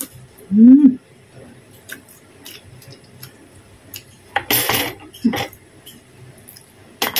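Eating with the fingers from a plate of rice: small clicks and taps of fingers and food against the plate, a short hummed 'mm' that rises and falls about half a second in, and a brief louder rustling sound a little past the middle.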